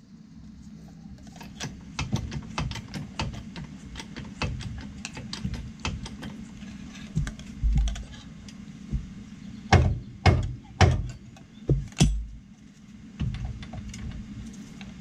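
Light metallic clicks and clatter from work on a truck's front suspension, with a run of five louder knocks about ten to twelve seconds in.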